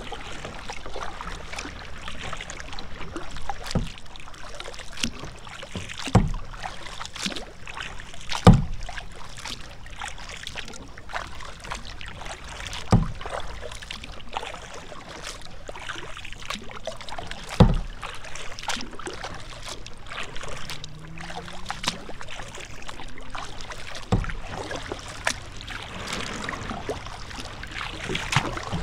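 A kayak being paddled across choppy water: water lapping and splashing against the hull, with a sharper knock every few seconds.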